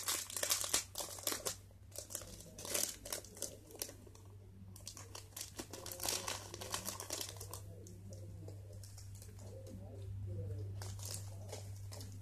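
Crinkling and rustling of small plastic sequin packets being handled, in bursts during the first few seconds and again about six seconds in, then quieter handling over a low steady hum.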